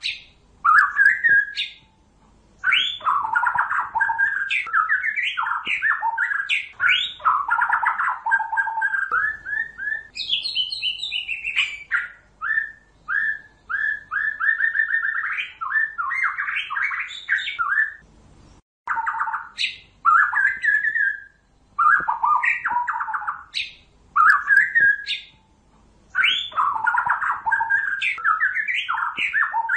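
White-rumped shama song, used as a lure for trapping shamas: a run of varied phrases of rich whistles, slurred notes and rapid trills, separated by short pauses.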